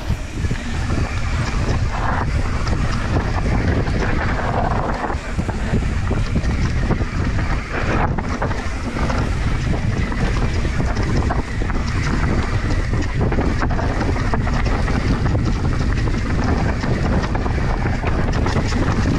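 Mountain bike descending a rough dirt trail, with heavy wind buffeting on the microphone over the rumble of tyres on dirt and the rattling and knocking of the bike over bumps.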